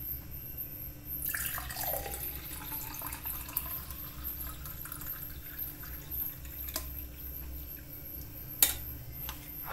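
Juice pouring from a stainless steel mixer-grinder jar into a glass, a steady splashing stream that starts about a second in. A sharp click near the end.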